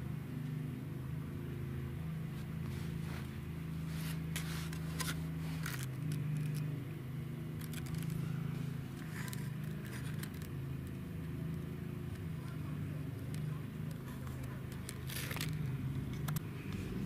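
A steady low hum, with scattered light scrapes and clicks, bunched a few seconds in and again near the end.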